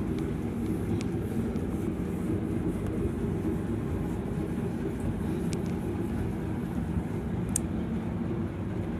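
A steady low mechanical hum with a few steady tones in it and an even background noise, broken only by a few faint ticks.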